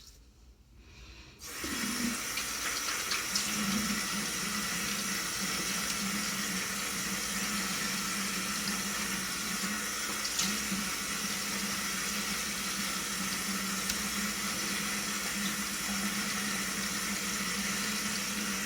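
A sink tap turned on about a second and a half in, then running in a steady stream, with a few small splashes as it is used for rinsing after a shave.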